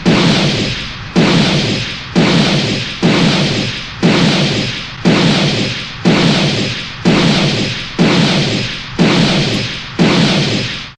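Sound-effect blasts of a beam weapon hitting a robot, repeated about once a second: about eleven sudden heavy hits, each dying away before the next.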